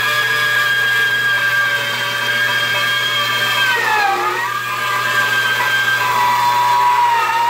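Bandsaw running, ripping a wooden board into thin laminate strips: a steady motor whine over a low hum. The whine dips in pitch about four seconds in and again near the end, as the cut loads the motor.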